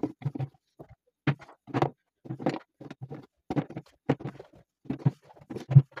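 Vegetable pieces (kelek melon slices, peppers, carrots) dropped and packed by hand into a large plastic jug: quick, irregular knocks and thuds against the plastic and the pieces already inside, several a second, with a louder knock near the end.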